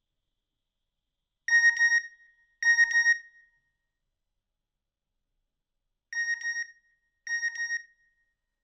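Nokia N95 mobile phone text message alert: two pairs of short, rapidly pulsing electronic beeps, the second pair a few seconds later and quieter.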